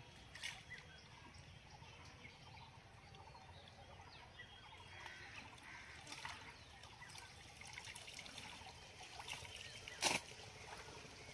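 Faint water trickling and sloshing as a net is worked by hand in shallow muddy pond water, with small crackles throughout and one sharp click about ten seconds in.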